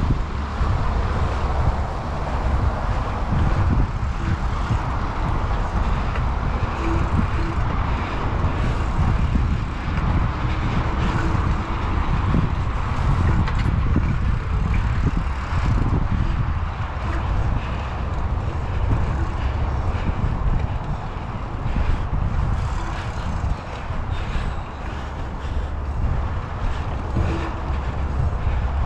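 Wind buffeting the microphone during a bike ride, a steady low rumble that rises and falls in gusts, with a hiss of moving air.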